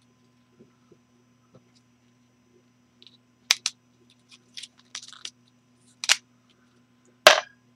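Sharp clicks and light clatter of a small plastic drill-bit index case with a clear slide-on top being handled, about five clicks in the second half, the loudest near the end, over a faint steady electrical hum.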